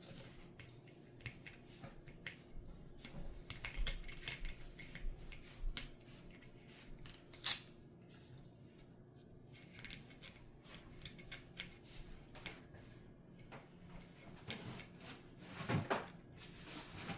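Hands working at a toy and its plastic packaging, with scattered small clicks, taps and scrapes. The handling gets busier about four seconds in and again near the end, with one sharper click in the middle.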